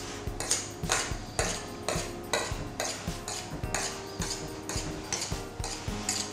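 Small serrated knife sawing along the rim of a metal tart ring, trimming off the overhanging pastry: short metallic scraping strokes, about two a second.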